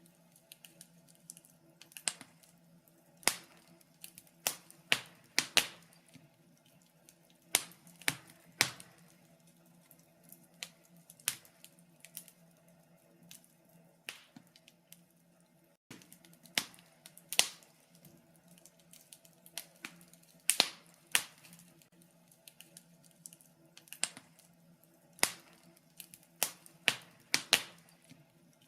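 Wood fire crackling in a fireplace: sharp pops and snaps at irregular intervals, some loud, some faint, over a faint steady low hum.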